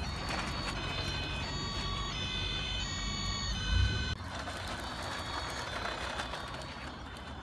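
Electronic siren of a toy fire truck, a set of steady beeping tones that step up and down, sounding for a few seconds and cutting off suddenly about four seconds in, over a steady background noise.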